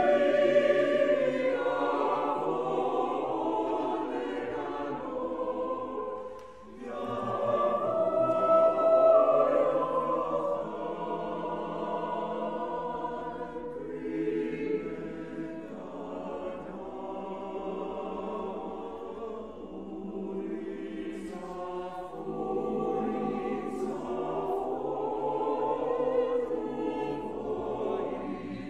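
Mixed choir of men's and women's voices singing, the phrases swelling and easing off. There is a short break about six and a half seconds in, and the next phrase comes in loud.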